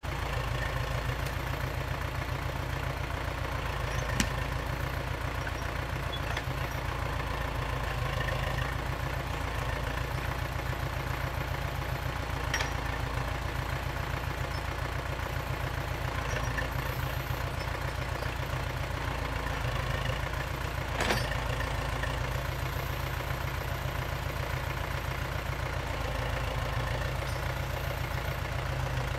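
Jumz excavator's engine running steadily with a low, pulsing note, broken by three sharp knocks spread through the clip.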